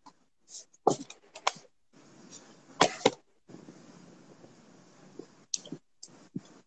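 Several sharp knocks and clicks, the loudest four close together in the first three seconds, followed by a low steady hiss with a few softer clicks near the end.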